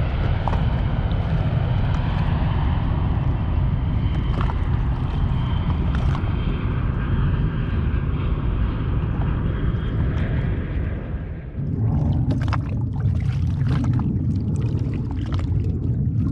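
Steady engine noise of a low-flying display aircraft with a faint high whine, fading out about eleven seconds in. After that, wind rumbles on the microphone and small waves splash.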